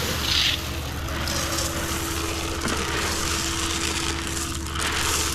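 Shelled corn mixed with feed pellets pouring from a plastic bucket into a wooden trough, a continuous grainy rush of kernels. Under it, a generator runs with a steady low hum.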